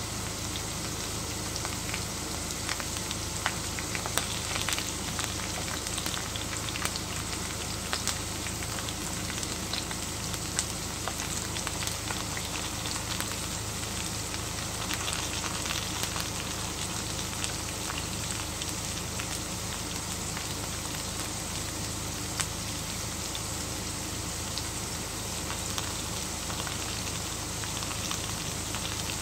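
Potato wedges and sticks frying in shallow oil in a frying pan: a steady sizzling hiss with scattered sharp pops and crackles.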